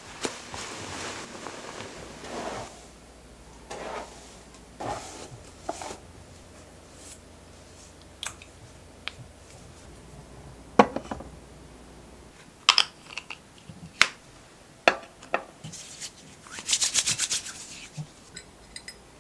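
Getting ready by hand: rustling, with scattered light clicks and knocks of small objects being picked up and set down. Near the end, about a second of hissing from a hair mist spray bottle.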